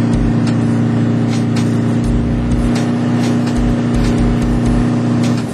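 Tow boat's engine running at a steady cruising speed, a constant drone, with water rushing in the wake and wind noise on top.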